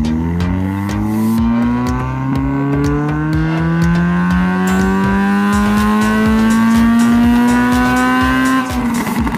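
Honda Civic FN2 Mugen Type R's 2.0-litre four-cylinder engine on a rolling-road power run under load, its pitch climbing smoothly for about eight and a half seconds before the throttle is lifted and the revs drop away sharply.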